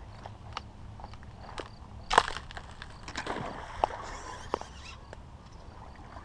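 Casting with a Lew's BB1 Pro Speed Spool baitcasting reel: scattered handling clicks and a sharp crackle about two seconds in, then a couple of seconds of hiss as line pays off the spool during the cast.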